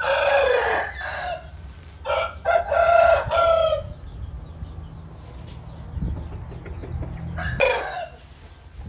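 Rooster crowing: the tail of one crow at the start, a full crow from about two to nearly four seconds in, and a short call near the end. A low steady hum runs underneath.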